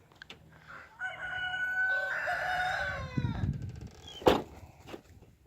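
A rooster crowing once, a cock-a-doodle-doo of about two seconds that falls in pitch at its end. A sharp knock follows a second later.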